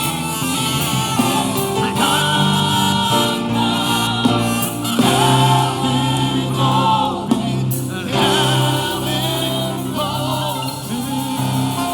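Gospel worship singing: a congregation and worship leaders sing together over a steady band accompaniment with a sustained bass.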